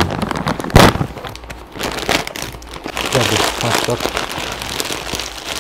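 A plastic packet of dry noodles being torn open, with one loud rip a little under a second in. The bag crinkles as it is handled afterwards.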